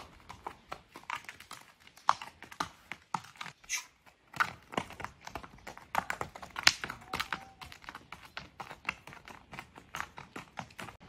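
Horse's hooves clip-clopping at a walk on a stony dirt road: a steady run of sharp knocks, several a second.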